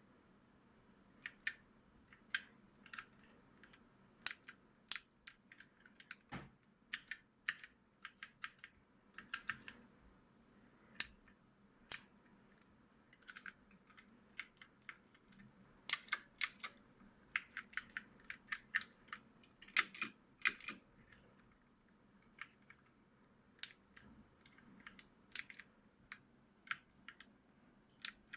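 Mechanical keyboard switches being pressed and released: sharp, separate key clicks at an uneven pace, some in quick pairs or short runs.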